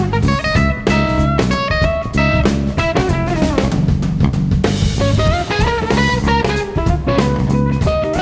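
Live jazz-funk band music: an electric guitar plays a melodic line over a drum kit and low bass notes.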